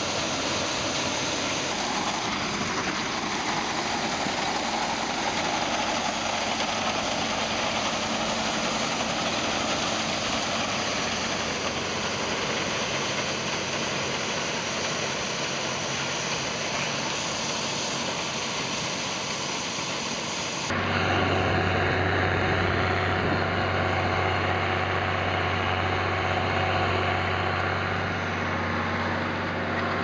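John Deere combine harvester running with a steady mechanical noise. About two-thirds of the way through, it changes suddenly to a louder, steady engine drone with a low hum, heard from on board the machine.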